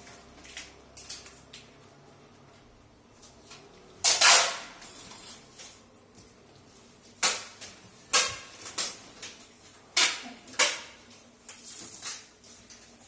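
Handling noises as clothes are sorted into a cardboard box and plastic bags: a string of short, sharp rustles and knocks, the loudest about four seconds in and several more between about seven and eleven seconds.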